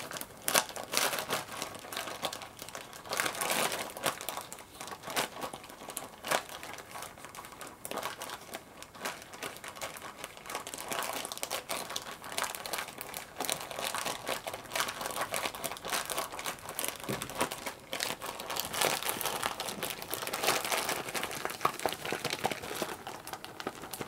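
Plastic Ziploc bag crinkling continuously as hands squeeze and knead it, mixing fiber plaster powder with water inside.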